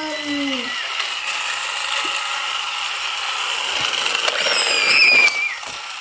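Battery-powered toy race car running along a flexible plastic track, its small motor whining and its wheels rattling over the track segments. Around five seconds in the whine gets louder and then slides down in pitch.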